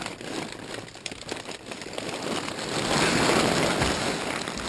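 Plastic trash bags stuffed with bags of chips rustling and crinkling as they are pulled and shifted, growing louder about halfway through.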